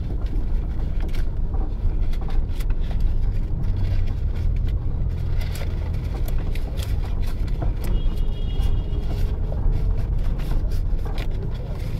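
Car driving slowly through city traffic, heard from inside the cabin: a steady low engine and road rumble, with scattered light clicks and crackles and a brief high squeak about eight seconds in.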